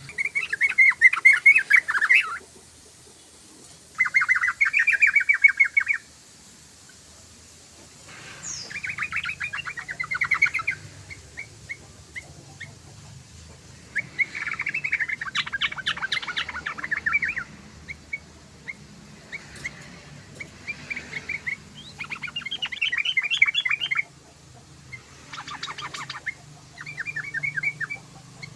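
Yellow-vented bulbul (trucukan) singing: about eight bubbly, chattering phrases of rapid repeated notes, each one to three seconds long, with short pauses between them.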